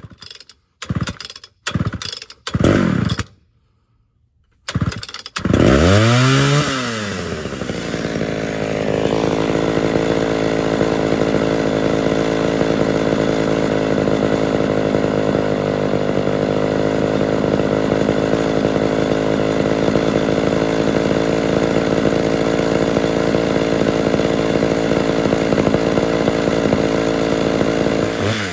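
Mildly ported Homelite Super XL Auto two-stroke chainsaw being started: a few short bursts, then it catches about five seconds in, revs up and falls back, and settles into a steady idle for the rest.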